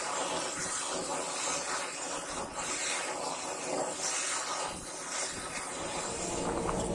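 Gas forge burner running with a steady hiss, the flame heating a steel blade for an edge quench.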